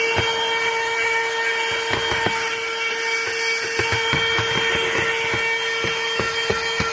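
Portable vacuum cleaner running with a steady whine, broken by scattered short clicks and knocks as it works over a car's interior.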